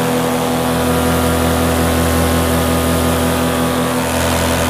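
Paramotor trike's engine and propeller running steadily under power during the takeoff run and climb-out.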